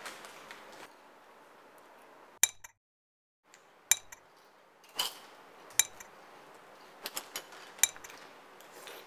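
Spoon clinking against a cereal bowl in scattered single strikes, with a quick run of three clinks about seven seconds in.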